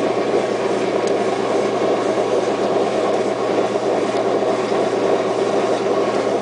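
Washing machine running with a steady mechanical drone, its motor trying to spin the drum while the drum does not turn: the machine fails to reach its spin cycle.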